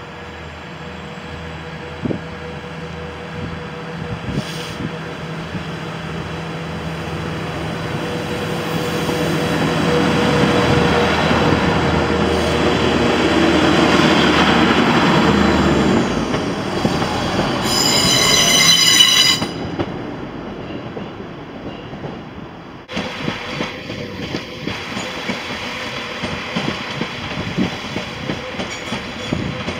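A diesel multiple unit running past close by, its engine hum and rolling noise swelling to a peak and then dropping away. It gives a brief high-pitched squeal lasting about two seconds. After a sudden change, a train rolls along the tracks at a distance with rail clatter.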